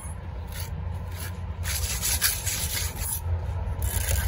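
Steel trowel scraping wet mortar across concrete block: several short gritty strokes, the longest about two seconds in.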